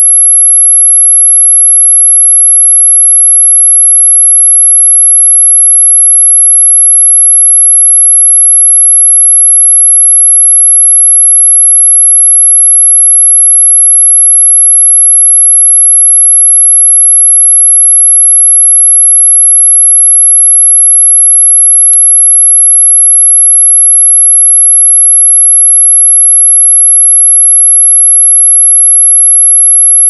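Dog whistle sound effect: a single loud, high-pitched pure tone held perfectly steady, without any change in pitch or level. A faint click comes about twenty seconds in.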